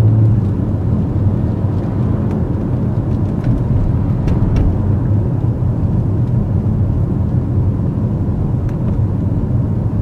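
A car driving, heard from inside the cabin: a steady low rumble of engine and road noise, with a few faint ticks.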